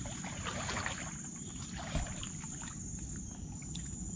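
Water splashing and sloshing as legs wade through knee-deep water, strongest in the first second, with a single thump about two seconds in.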